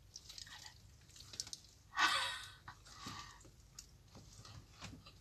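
People eating sandwiches: small scattered clicks of chewing, biting and handling the bread, with one short, louder burst of noise about two seconds in.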